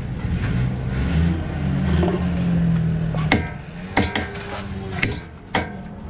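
A low, steady engine drone. From about three seconds in it gives way to heavy hammer blows on steel, about five ringing strikes spaced half a second to a second apart.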